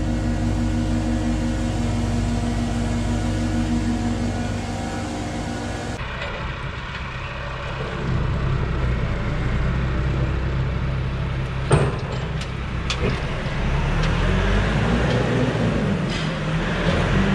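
Steady machine hum with a low drone from the equipment beside a bulk milk tank, which changes abruptly about a third of the way in to a tractor engine running as it tows a Teagle Tomahawk straw bale processor. A sharp click comes a little past the middle, and a rising whine near the end.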